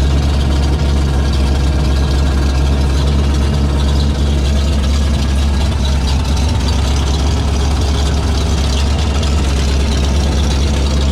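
The 1966 Chevrolet C60 grain truck's engine idling steadily, with its PTO disengaged, heard close up from under the truck.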